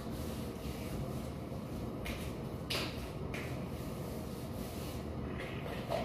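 A few short rubbing swishes of soapy hands and a sponge scrubbing a person's legs, the strongest about three seconds in, over a steady low hum.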